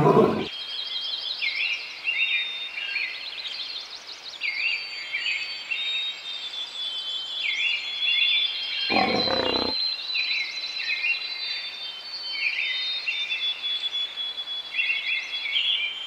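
Short lion growls, one tailing off at the very start and another about nine seconds in. Under them runs a steady chorus of high, repeated chirping calls.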